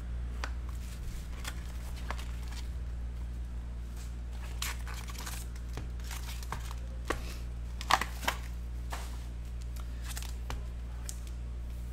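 Utility knife cutting open a sealed cardboard hockey card box (Upper Deck Ice), then the cardboard lid torn open and foil card packs handled: scattered scrapes, rips and crinkles, busiest about five and eight seconds in, over a steady low hum.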